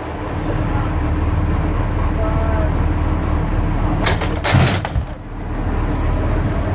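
A boat's engine running with a steady low drone, and a loud rushing noise for about a second, about four seconds in.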